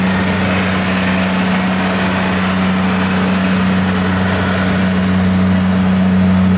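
Diesel farm tractor engine idling with a steady low drone that holds an even pitch throughout, growing slightly louder near the end.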